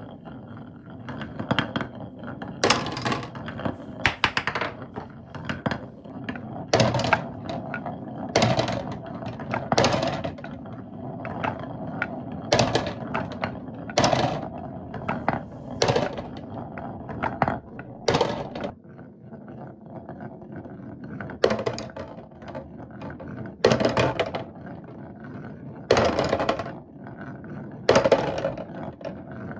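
Marbles rolling down a HABA marble run: a continuous rolling rumble along the track, with a sharp clack about every two seconds as marbles drop and knock against the track pieces.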